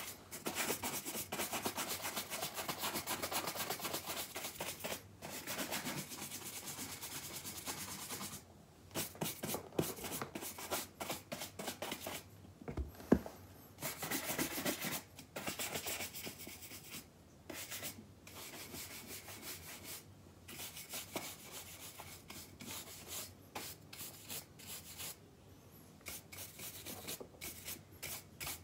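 Horsehair shoe brush swept quickly back and forth over leather shoes, a dense scratchy rubbing broken by a few short pauses. A single sharp knock about halfway through is the loudest sound.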